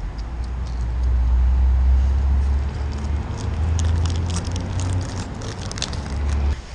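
Low rumble of road traffic crossing the bridge overhead, heaviest a second or two in, with scattered light ticks and clicks through the middle; it cuts off suddenly near the end.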